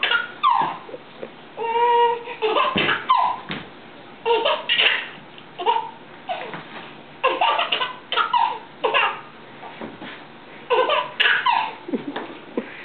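A baby laughing in repeated fits of belly laughs, with one longer held squeal about two seconds in and short pauses between the bursts.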